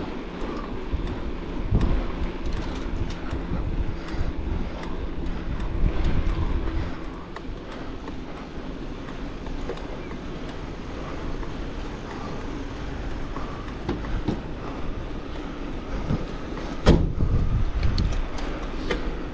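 Wind rushing over an action camera's microphone as a mountain bike rolls fast on pavement, with the bike's small clicks and rattles. The low wind rumble eases after about seven seconds, and a single sharp knock comes near the end.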